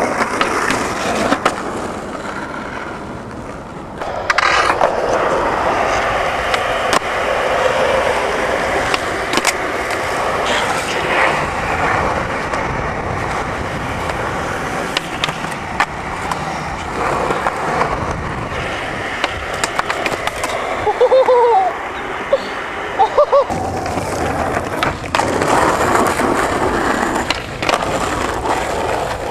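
Skateboard wheels rolling on pavement, with sharp clacks of the board popping and landing several times.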